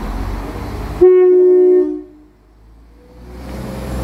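Horn of a Northern Ireland Railways Class 4000 diesel multiple unit sounding once, a short loud two-note blast about a second in, over the low rumble of the train. After the blast the sound drops away sharply and the rumble slowly builds back.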